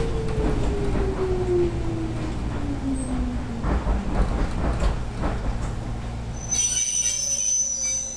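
Jōmō Electric Railway 700 series electric train heard from inside the car as it slows, its motor whine falling in pitch over the first few seconds over a low running rumble and scattered wheel knocks. About six and a half seconds in a high-pitched squeal sets in, and the running sound drops away near the end as the train nears a stop.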